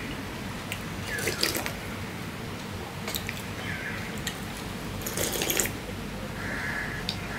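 A person slurping runny dal (lentil soup) off the rim of a stainless steel plate: several wet sucking slurps, the longest about a second in and about five seconds in.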